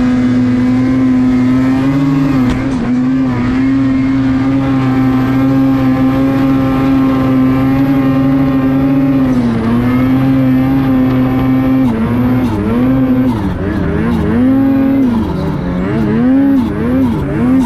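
Turbocharged Lynx snowmobile engine held at high revs under load in deep powder, its pitch steady for most of the stretch. Twice the pitch drops briefly, once about halfway through, and over the last few seconds it dips and rises again and again as the throttle is let off and reapplied.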